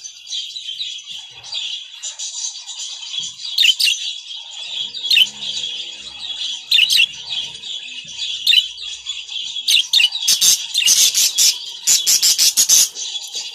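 Caged budgerigars chattering: a continuous high warble with sharp chirps every second or two. From about ten seconds in, a quick run of sharp clicks and louder chirps lasts about three seconds.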